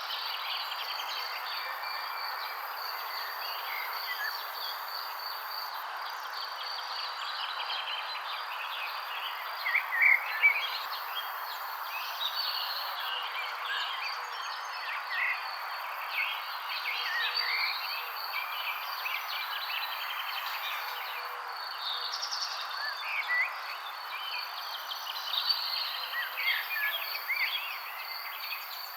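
Many birds chirping and twittering in short scattered calls over a steady high insect trill and a constant background hiss. A louder flurry of chirps comes about ten seconds in.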